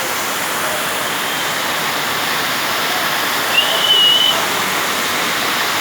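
Heavy rain falling in a steady downpour. A short, high whistle-like tone sounds briefly about three and a half seconds in.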